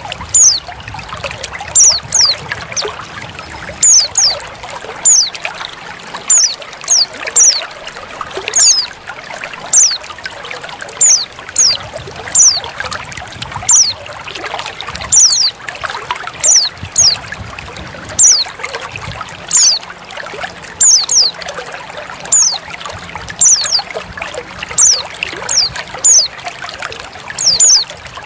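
Short, high call notes of a female white-eye (pleci), each falling quickly in pitch, coming singly or in quick pairs every second or two over steady trickling water.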